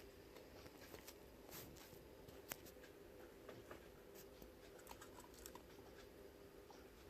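Very faint, steady motor hum from a 1988 CEC Georgian 303D ceiling fan running, with scattered light clicks and ticks, one sharper about two and a half seconds in.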